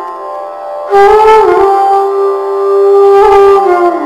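Instrumental background music: long held melodic notes on a wind-like instrument, swelling about a second in and stepping down in pitch near the end.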